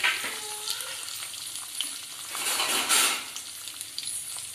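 Sliced onions with green chillies, curry leaves and cumin frying in hot oil, a steady sizzle that swells louder for about a second midway. The onions are fresh in the pan and still raw, being fried until golden as the tempering for poha.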